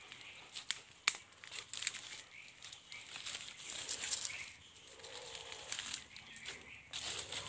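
Rustling and crunching of grass and dry leaves as someone moves through the undergrowth, with a couple of sharp clicks about a second in.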